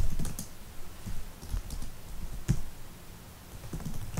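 Typing on a computer keyboard: irregular keystroke clicks, some louder than others.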